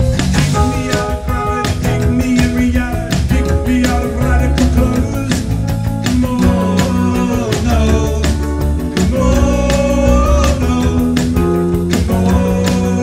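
Live rock band playing: electric bass, electric guitar and a Korg synthesizer keyboard over a steady beat.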